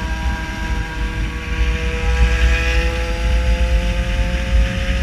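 An engine running steadily over a low rumble, its pitch rising slowly.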